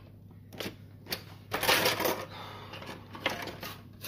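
Kitchen utensils being handled: irregular clattering and rattling with a few sharper knocks, the longest burst about halfway through.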